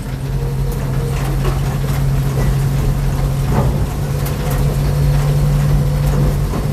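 1951 Chevrolet rat-rod truck's engine running at a steady low speed as the truck drives over a bumpy dirt track, with a few scattered knocks and rattles from the body.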